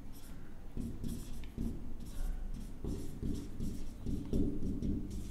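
Marker pen writing on a whiteboard: a run of short, irregular strokes as words are written out, over a low steady hum.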